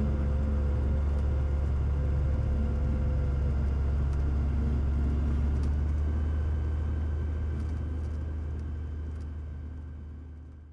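Cessna 182's piston engine and propeller running at low taxi power, a steady low drone heard from inside the cabin, fading away over the last few seconds.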